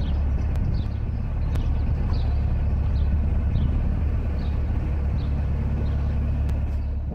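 Narrowboat engine running steadily under way at cruising speed, an even low drone.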